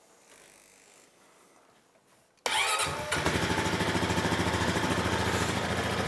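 Honda Rancher 420 ATV's single-cylinder engine starting about two and a half seconds in, then idling with a steady pulse. It fires on the electric starter now that the chewed starter relay has been replaced, curing the no-start.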